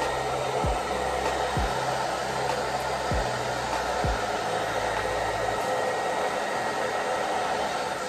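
Handheld blow dryer running on heat, a steady rushing of hot air, used to dry brushed-back edges flat along the hairline.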